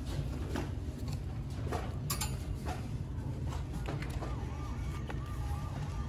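Plastic packaging and fabric goods crinkling and rustling as they are handled in a wire display bin, with several short sharp crinkles, over a steady low store hum.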